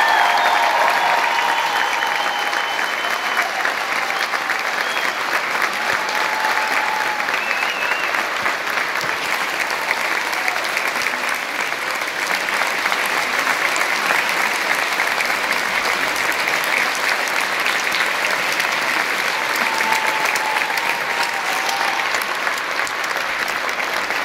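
Concert audience applauding steadily, with a few voices calling out over the clapping.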